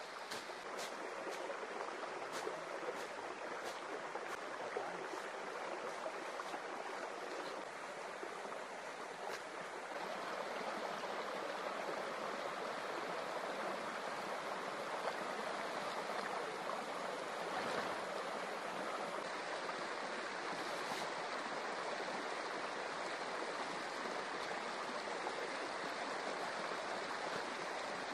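Steady sound of flowing river water, getting a little louder about ten seconds in. Faint, sharp high ticks repeat during the first several seconds.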